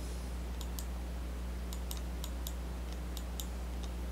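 Computer mouse and keyboard clicks, about ten short, irregular clicks while CAD commands are worked, over a steady low hum.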